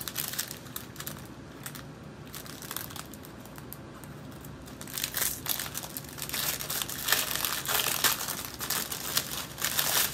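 Small plastic bags of diamond-painting drills crinkling as they are handled, sparse at first, then denser and louder from about halfway.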